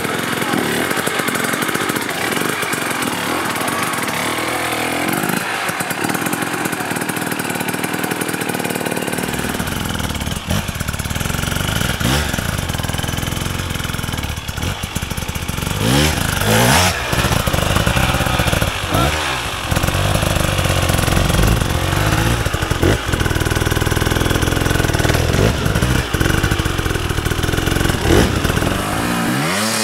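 KTM enduro motorcycle engines revving hard in repeated bursts, the pitch climbing and dropping again and again as the bikes are forced up a steep, muddy slope.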